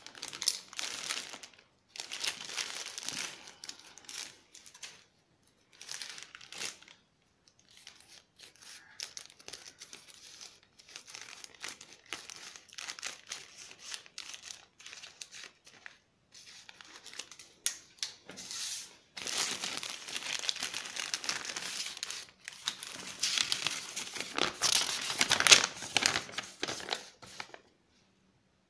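Plastic courier mailer bag crinkling and rustling in irregular bursts as it is handled, cut and torn open with scissors, loudest in the last third. Near the end, paper rustles as the invoice is taken out.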